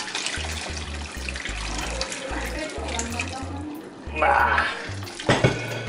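Beef broth pouring from a stainless pot through a mesh strainer into a pan of gravy: a steady splashing stream, louder about four seconds in, with a sharp metal knock near the end. Background music with a steady beat runs underneath.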